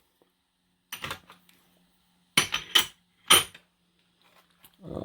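Steel sockets and impact extensions clinking against each other as they are handled in a tool cart drawer: about four sharp metallic clinks with a short ring.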